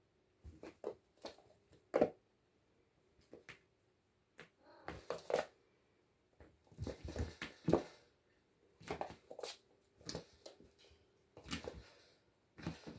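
Oriental kittens scampering and pouncing on a wooden floor and around a fabric cat bed: scattered soft thuds, scuffs and rustles of paws in irregular bursts, the sharpest knock about two seconds in.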